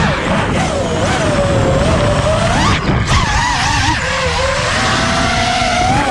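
FPV quadcopter's brushless motors and Dalprop 5147.5 propellers whining, the pitch sliding up and down continuously with the throttle.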